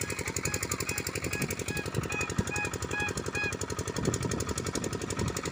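A machine running with a fast, even rattle of knocks that does not let up.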